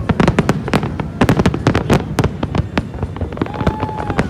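Fireworks going off in a dense barrage: rapid, overlapping bangs and crackles, several a second, with no let-up.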